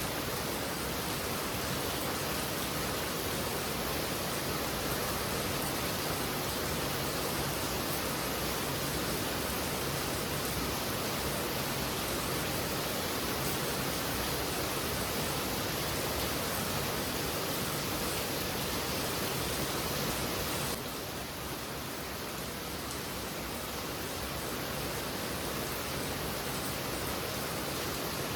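Heavy rain falling steadily as a dense, even hiss. About two-thirds of the way through, the level drops suddenly and slightly, then carries on evenly.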